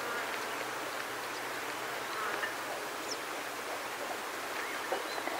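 Open grassland ambience: flies buzzing over a steady rush of wind in grass, with a few short chirps from small birds such as yellow wagtails and cisticolas, and small clicks of warthogs feeding on short grass.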